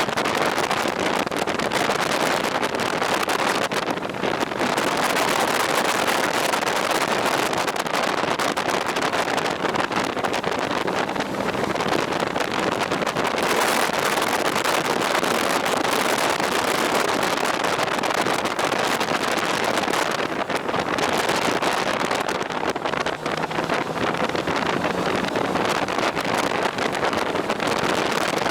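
Steady rush of wind over the microphone from a moving motorcycle, with the running engine faint underneath.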